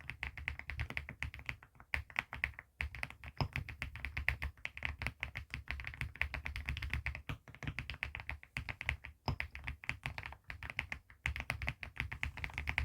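Fast, continuous typing on a custom mechanical keyboard fitted with HMX Macchiato switches and ceramic keycaps: a dense run of keystrokes broken by a few momentary pauses.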